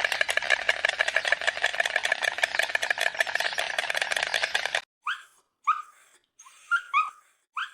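An animal's rapid pulsing call, many pulses a second, lasting about five seconds and cutting off abruptly. It is followed by short whimpering yelps that glide in pitch, about one a second.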